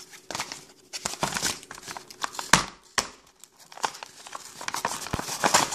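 Cardboard box packaging being torn open and peeled back by hand: irregular crackling and ripping, with a couple of louder snaps around the middle.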